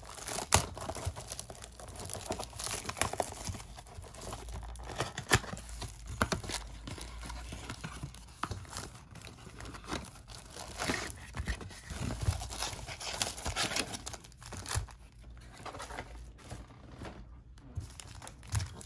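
A cardboard trading-card blaster box being opened by hand, with irregular tearing and the crinkling of its wrapping and packs.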